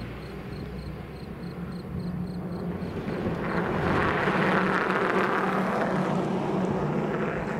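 A car driving across the level crossing: its engine and tyre noise swells about four seconds in and eases off towards the end, over a steady low engine hum.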